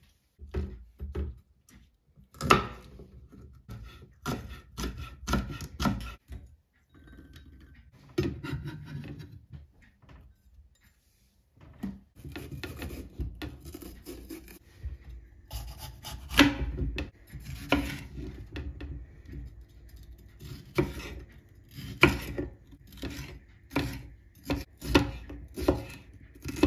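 Kitchen knife cutting a green bell pepper on a cutting board: irregular knocks of the blade on the board and short crunching, scraping cuts, coming quicker near the end as the pepper is sliced into strips. A brief pause falls in the middle.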